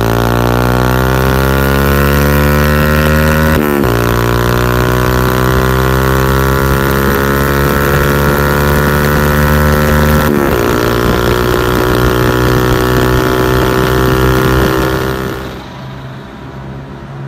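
Yamaha YBR 125G's single-cylinder four-stroke engine revving through an SC Project-style cut aftermarket exhaust, the pitch climbing slowly in long held revs that drop sharply twice and build again. Near the end the revving gives way to a quieter vehicle engine sound.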